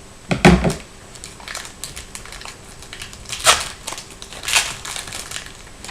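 Crinkling foil trading-card pack being handled and torn open, with a thump about half a second in and two louder crackling rips later on.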